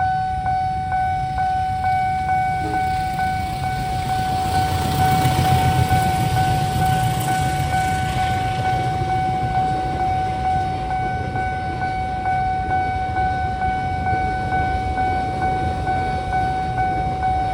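Railway level-crossing warning alarm sounding one steady, unbroken high tone, over the low rumble of a train passing the crossing, which is loudest about five to eight seconds in.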